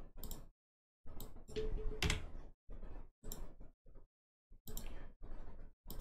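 Computer mouse and keyboard clicks: a string of short, sharp clicks with gaps between them.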